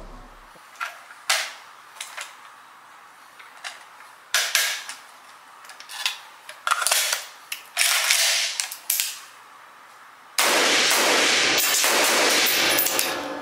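FN SCAR 17S .308 semi-automatic rifle with a large muzzle brake fired in a quick string of sharp reports, roughly two a second and uneven in strength. They are followed by about three seconds of loud, steady rushing noise.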